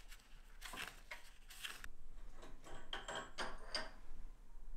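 Steel engine parts clinking and scraping as a gear is worked loose and slid off its splined shaft in a GTD-350 turboshaft engine's gearbox. A burst of rattling about a second in, then several light metallic taps with brief ringing.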